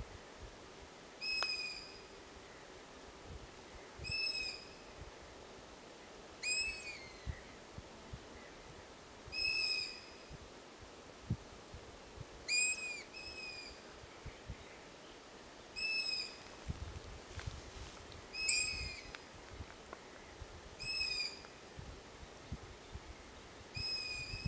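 Long-eared owl chick's begging call: a short high note that rises and falls, repeated about every three seconds, about nine times in all. Fainter begging calls of its siblings come in between.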